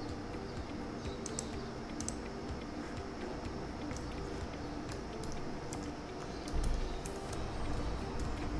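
Scattered computer keyboard and mouse clicks, a dozen or so sharp single clicks at uneven intervals, over a steady low hum. A low rumble comes in near the end.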